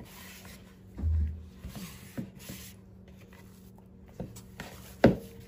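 Hands kneading glutinous rice flour dough in a plastic bowl: soft rubbing and squishing with a few scattered knocks, a dull thump about a second in and a sharp click near the end.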